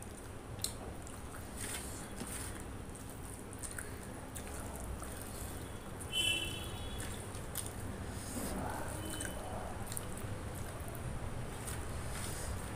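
Wet chewing and mouth sounds of eating rice and chicken curry, with squishy clicks of fingers mixing rice and gravy on a steel plate. A brief high-pitched squeak about six seconds in is the loudest sound.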